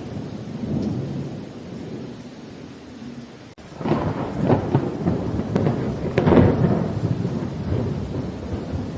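Thunder rolling over steady rain: a low rumble, then a closer thunderclap that breaks in a little under halfway with a string of sharp cracks. It is loudest about six seconds in, then rolls off into rumbling.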